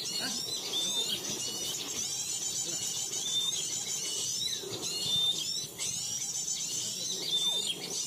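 Dense, high-pitched chattering and chirping of small birds, the same short notes recurring over and over: a 'crecetan' lure call of noisy, agitated bird chatter, played to draw birds in to the trap.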